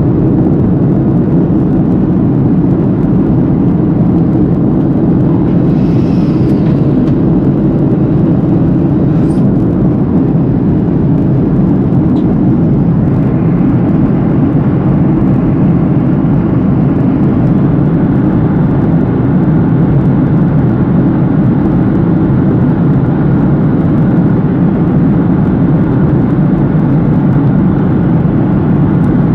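Steady, low engine and airflow noise inside an airliner cabin in flight.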